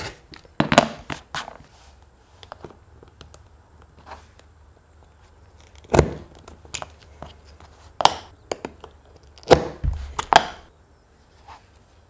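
Sharp knocks and thunks of hand tools being handled, set down and pressed onto leather on a workbench. There are two knocks about a second in, a hard thunk about six seconds in, and a cluster of knocks from about eight to ten and a half seconds.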